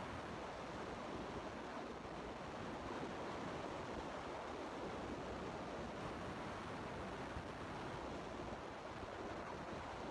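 Steady rushing background noise with no distinct events, like the hiss of a fan or air conditioning.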